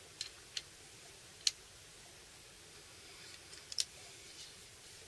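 A handful of light, sharp clicks and taps of small metal parts being handled as the hand rivet gun's nosepieces are swapped, with two clicks close together near the end.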